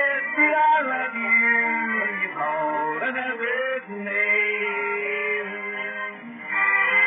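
A vinyl record playing on a turntable: a man singing held, sliding notes over the band's backing. The sound is thin, with no deep bass and no high treble.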